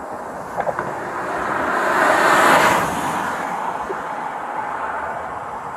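A vehicle passing at highway speed, its road noise swelling to a peak about two and a half seconds in and then fading away, over steady traffic noise.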